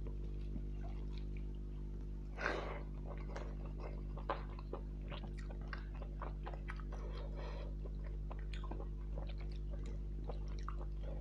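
Close-up chewing and wet mouth sounds of someone eating rice with rohu fish curry: irregular short smacks and clicks, with one louder, longer wet sound about two and a half seconds in. A steady low hum runs underneath.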